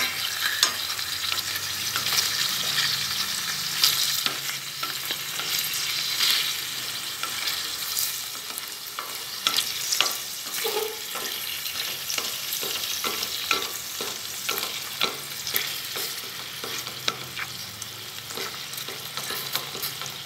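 Sliced pig liver sizzling in hot lard in a stainless steel pot as it is stir-fried with chopsticks, which click and scrape against the pot again and again. The sizzle eases off a little in the second half.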